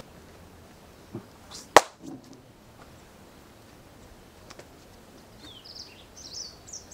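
Quiet outdoor background with one sharp click a little under two seconds in and a few fainter clicks around it. Birds chirp in short high, gliding notes near the end.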